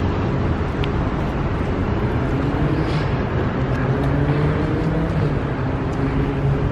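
Street traffic: steady road noise with the engine hum of a passing motor vehicle that grows from about two seconds in.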